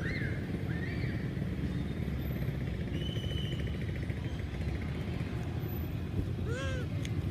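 A young monkey crying in short arched whines, faint near the start and louder once about six and a half seconds in, over a steady low rumble.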